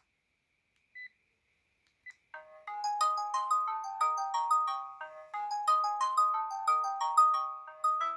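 Sharp GX12 mobile phone previewing its polyphonic ringtones through its loudspeaker. After a short pause broken by two brief beeps, a new ringtone starts about two seconds in: a quick melody of short notes stepping up and down in pitch.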